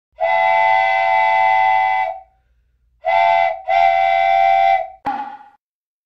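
Steam train whistle, a chord of several tones, blown three times: a long blast of about two seconds, a short one, then another long one, each sagging a little in pitch as it cuts off. A click follows shortly after.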